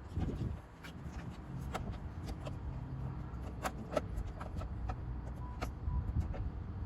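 Scattered light clicks and taps of screws being driven into a car door's interior panel, over a low steady rumble.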